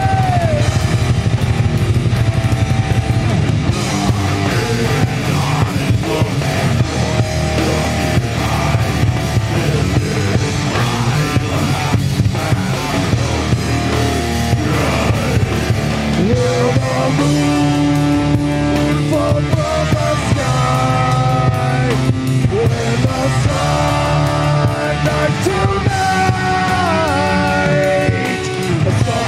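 Live rock band performing: electric guitars and drums playing a loud, continuous rock song.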